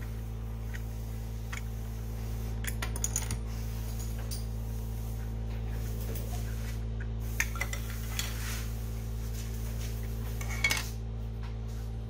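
Scattered small plastic clicks and scrapes as the snap-together plastic case of a Sonoff Basic smart switch is pried open and its circuit board lifted out, over a steady low hum.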